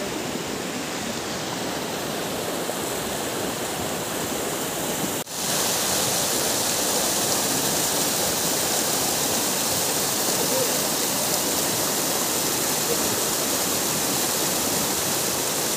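Steady rush of a mountain stream's water flowing over rocks. About five seconds in it cuts abruptly to a louder, brighter rush of white water tumbling down a small cascade.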